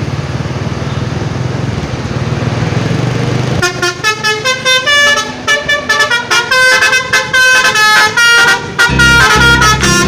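A steady low engine rumble, then about three and a half seconds in a Basuri telolet horn starts playing a fast tune of short, quickly changing notes. A deep low tone joins the melody near the end.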